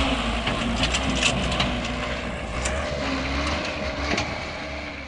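Dump truck engine running under strain with a steady low drone, over scattered crunches and clicks of gravel, fading toward the end.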